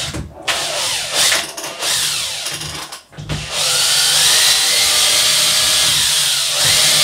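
Makita power drill boring a pilot hole at an angle into a hardwood aquarium root. The motor runs in short spurts with its pitch rising and falling, pauses briefly about three seconds in, then runs steadily.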